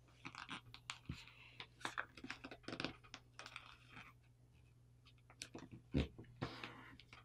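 Faint crinkling and rustling of paper in scattered short crackles as fingers fold and crease a paper airplane's wing, with a louder thump about six seconds in.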